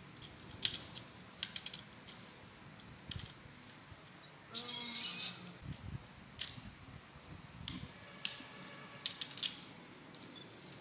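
Scattered plastic clicks and snaps from a Zoids Wild Liger model kit being handled, its blade weapons pressed back into place, with a louder rattling burst about halfway.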